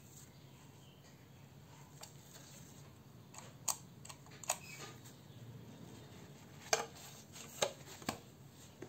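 Small clicks and knocks from a Ricohflex twin-lens reflex camera's metal parts as it is handled and closed: about six sharp, irregular clicks in the second half, over quiet room tone.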